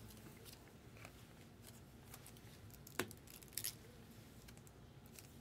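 Quiet handling of Topps Chrome trading cards: faint room tone, one sharp click about three seconds in and a brief soft rustle just after.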